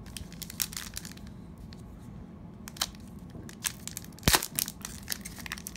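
Foil wrapper of an Upper Deck hockey card pack crinkling and being torn open by hand: scattered sharp crackles, with one loud snap about four seconds in.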